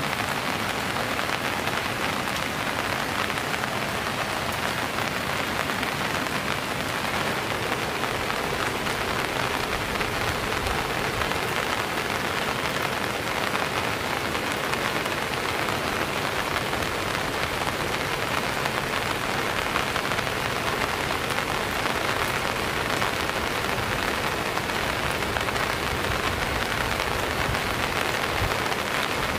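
Steady rain falling on surfaces: an even hiss that doesn't let up.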